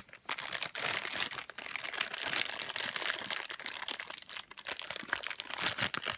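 Plastic crinkling and crackling as it is handled, a dense run of irregular crackles with short pauses.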